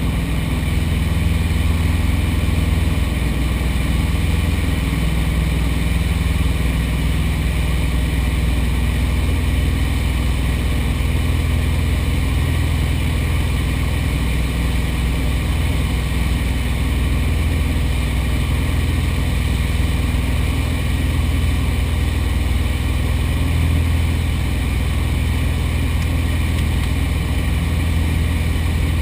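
Light aircraft's piston engine and propeller running steadily, with no change in pitch or power.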